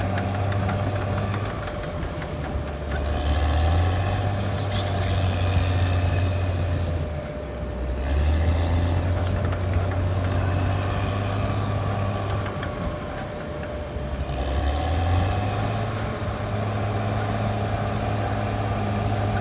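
Caterpillar D6R XL bulldozer's diesel engine running steadily, its low note dropping and rising again a few times.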